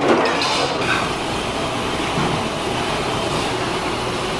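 Cooking oil poured into a large frying pan on the stove during the first second, over a steady hiss of the hot stove and pan that runs on evenly.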